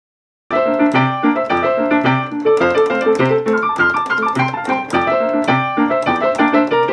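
Piano playing a melody over chords at an even pace, starting about half a second in.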